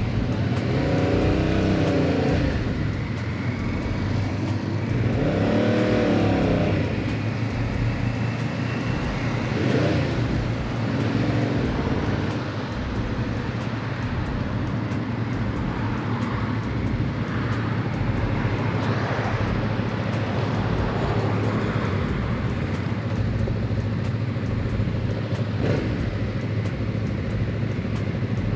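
2022 Yamaha MT-07's parallel-twin engine through a full aftermarket exhaust, revving up and dropping back several times in the first dozen seconds, then running more steadily.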